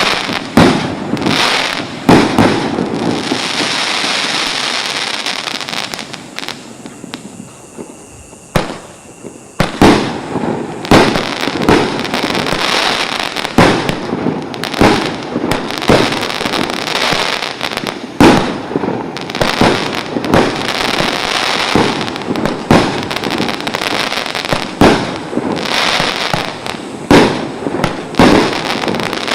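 Multi-shot firework cakes (salute batteries of 16–19 shots) firing shot after shot: a sharp bang about every second over continuous crackling. The firing drops to a lull about a quarter of the way in, with one lone bang, then picks up again.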